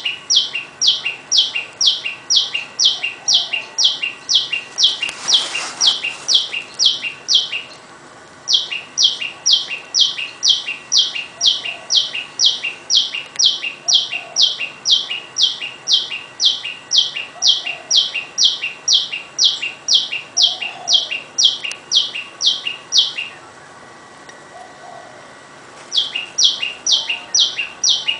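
Tailorbird calling loudly: a rapid, even series of sharp notes, each falling in pitch, about two or three a second. The run breaks off briefly about eight seconds in, then pauses for a few seconds near the end before starting again.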